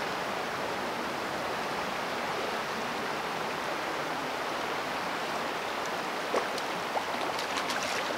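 Steady rush of flowing creek water, with a few short faint clicks near the end.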